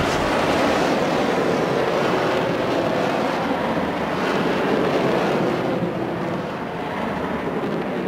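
A long, loud rushing rumble from a sound-effects library, steady for several seconds and then slowly fading over the last two seconds.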